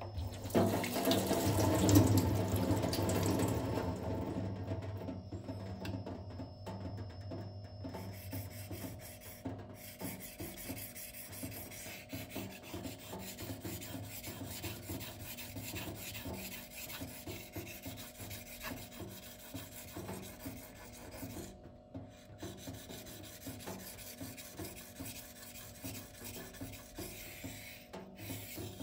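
The M390 steel blade of a folding knife being stroked back and forth across a Shapton waterstone: a steady run of repeated rasping rubs as the edge is ground to raise a burr. A louder rush of noise fills the first few seconds before the strokes settle to an even pace.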